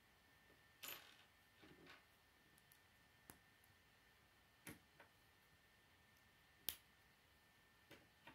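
K'nex plastic rods and connectors being handled and snapped together by hand: a series of sharp, separate plastic clicks, about seven of them, the loudest about two-thirds of the way through, with a short rustle of handling about a second in.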